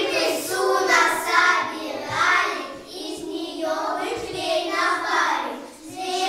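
A group of young children singing together, in phrases that rise and fall.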